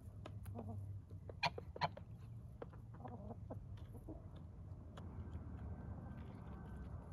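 Hens clucking softly in short, scattered calls, with two sharp, louder sounds close together about a second and a half in.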